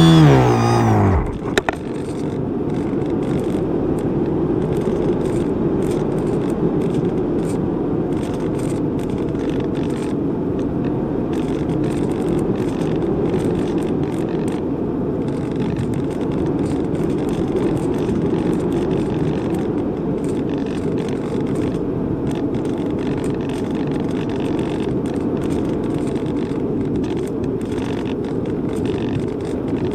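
A pitched whine with many overtones drops in pitch and stops about a second in, like a model's electric motor being cut. After that comes a steady, low rush of wind noise on the microphone, typical of a glider in flight.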